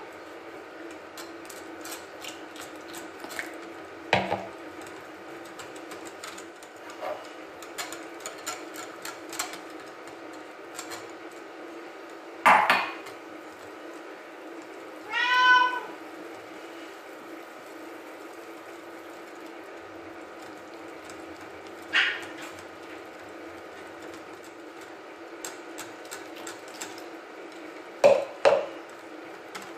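Wire whisk clinking and scraping against a glass bowl while beating pancake batter, with a few louder knocks of utensils and a jug against the bowl and table, a double knock near the end. A brief squeal is heard about halfway through.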